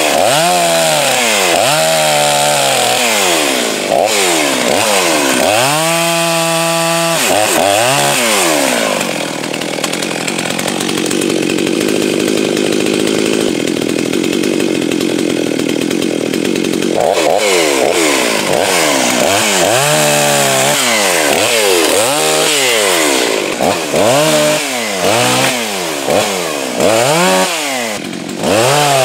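Farmertec MS360 kit chainsaw, a Stihl 036 clone with a two-stroke engine, revved up and down again and again. For about eight seconds in the middle it holds a steadier, lower note under load, cutting through wood, then goes back to quick revs and shorter bursts near the end.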